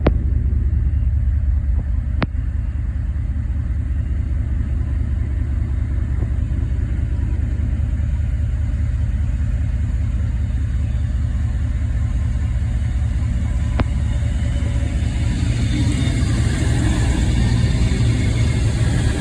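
A Class 221 Super Voyager diesel multiple unit approaching, with a steady heavy diesel rumble that grows fuller and noisier over the last few seconds as the train draws nearer.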